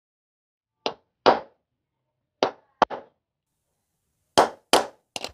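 New ball bearing being tapped onto the rotor shaft of a sewing-machine clutch motor with pliers used as a hammer: about eight sharp metal-on-metal knocks, mostly in pairs, with short pauses between. The knocks drive the bearing toward its seat at the end of the shaft.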